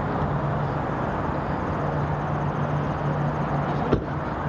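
Steady traffic noise with a low steady hum running through it, and one sharp click about four seconds in.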